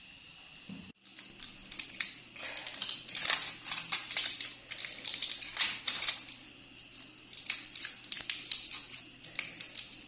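Irregular crinkling and rustling of something being handled, dense and crackly, over a faint steady hum. It starts after an abrupt cut about a second in, which ends a steady insect-like chirring.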